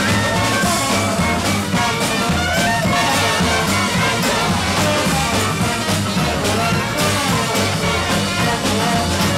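A live New Orleans-style parade band playing a second-line tune: a reed instrument, banjo and drum kit over a repeating bass line, with a steady drum beat.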